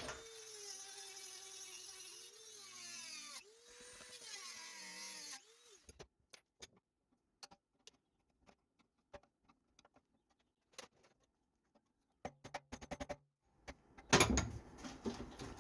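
Small high-speed power tool cutting off a seized part of an RV furnace. Its motor whirs with a pitch that sags and recovers under load, pauses briefly about three and a half seconds in, and stops after about five seconds. Scattered light clicks and taps follow, and louder handling noise comes near the end.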